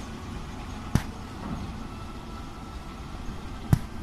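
A locomotive runs at idle with a steady low rumble. Two sharp knocks sound about a second in and near the end, roughly three seconds apart.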